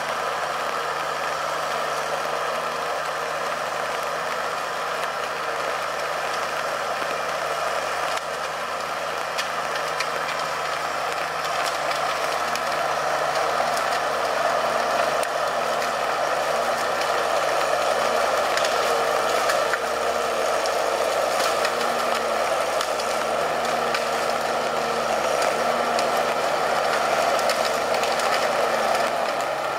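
Valmet 840.3 forwarder's diesel engine running steadily as the loaded machine drives slowly on its tracked bogies, with a light rattling over it. It grows somewhat louder through the second half as the machine comes closer.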